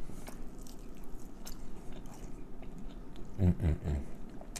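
Close-up chewing and biting of fried Cornish hen, with many small crunches and wet mouth clicks. Three short low hums come about three and a half seconds in.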